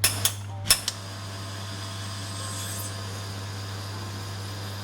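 Three sharp clicks from the espresso machine within the first second, then a steady hum with a light hiss.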